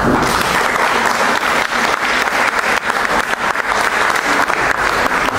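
An audience applauding, many hands clapping together at a steady level.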